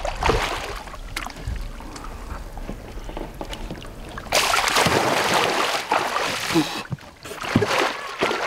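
Water splashing and sloshing around a musky held in a landing net beside a boat, with hands working in the net. A heavier burst of splashing starts about four seconds in and lasts two to three seconds.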